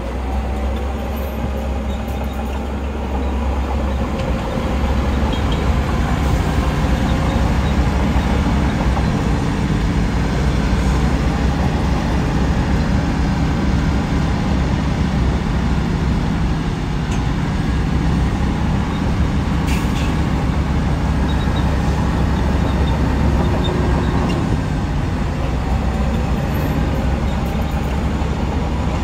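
Heavy diesel earthmoving machinery working: a steady, deep engine rumble that grows louder about four seconds in.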